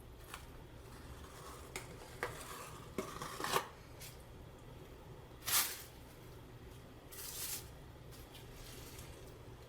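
A combing tool scraping through tile adhesive spread on a wall, in several short strokes with a few clicks and taps.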